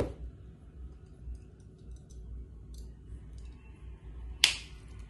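Crimping tool's cutter blade snipping the ends of the LAN cable's wires to an even length: a sharp click right at the start and a louder snip about four and a half seconds in, with faint small clicks of handling between.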